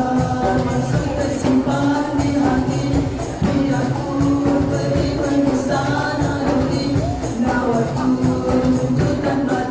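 Male nasyid group singing a devotional song together in several voices, over a steady hand-percussion beat.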